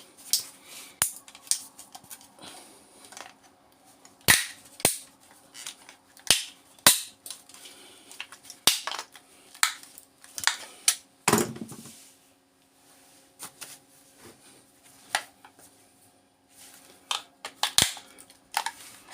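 Plastic casing of an AC power adapter being forced and cracked open: irregular sharp cracks and snaps, with a heavier knock about eleven seconds in.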